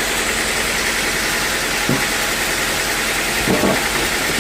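Sawmill machinery running steadily, a constant mechanical din with a few brief short sounds over it about two seconds in and around three and a half seconds in.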